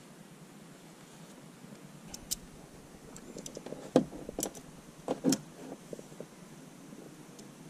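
Irregular clicks and light metallic knocks of hand tools working against metal parts behind a van's dashboard, sparse at first, busiest in the middle, with the loudest knock about four seconds in.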